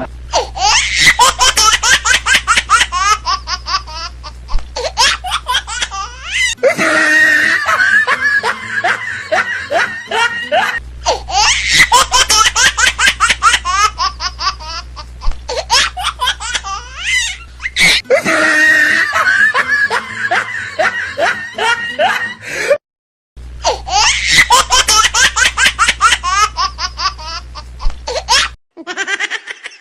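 Hearty laughter in fits of rapid bursts, in several bouts broken by short pauses and abrupt cuts.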